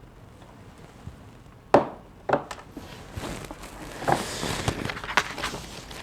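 Handling noise: two sharp knocks, then a few seconds of rustling broken by light clicks and taps.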